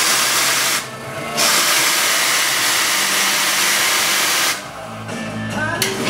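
Steam wand of a Nuova Simonelli three-group espresso machine venting steam with a loud hiss. The hiss breaks off for about half a second, runs on for about three seconds more, then stops. A short click comes near the end.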